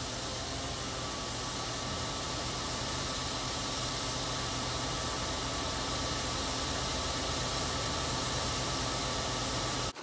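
John Deere combine running and unloading corn through its auger into a semi trailer: a steady, even hiss over a low engine hum.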